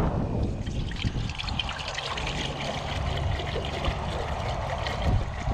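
Water pouring in a steady stream from a large plastic bottle into a stainless steel pot, splashing on the water in the pot.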